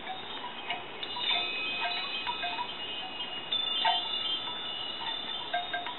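Chimes ringing: several high tones, one set starting about a second in and another midway, each hanging on for seconds and overlapping.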